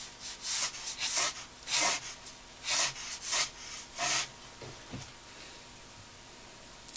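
Ruling pen scratching short straight lines across watercolour paper: about six quick, dry strokes, one after another, in the first four seconds.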